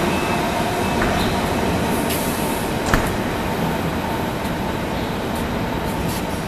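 ICE high-speed train rolling slowly along the platform and coming to a stop, a steady noise throughout, with one sharp click about three seconds in.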